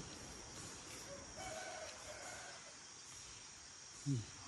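A single distant bird call, lasting about a second, over a steady high-pitched insect drone. Near the end comes a brief, louder, low sound that rises in pitch.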